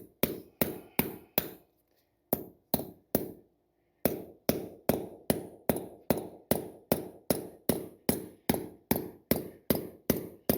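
Hammer driving a wedge anchor bolt down into a drilled hole: sharp, ringing blows about three a second, in two short runs with brief pauses, then unbroken for the last six seconds or so.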